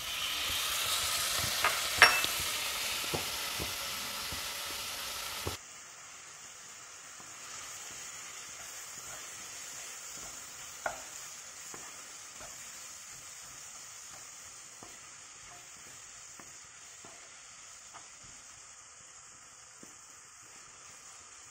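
Chopped tomatoes sizzling in hot oil with fried onions and masala in a kadai, stirred with a wooden spatula. The sizzle is loud for the first five seconds or so, with a sharp clack of the spatula about two seconds in. It then drops suddenly to a softer steady sizzle with occasional light taps of the spatula on the pan.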